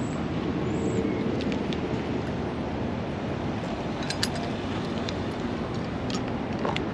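A car driving, with steady engine and road noise and a few faint ticks.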